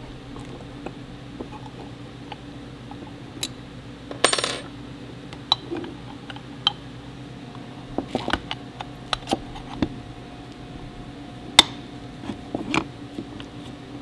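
Metal parts of a home-built hydraulic handbrake (handle tube, pivot bolt and aluminium enclosure) clinking and tapping as they are fitted together by hand. There is a short scraping rattle about four seconds in and a sharp clink past the middle, over a steady background hum.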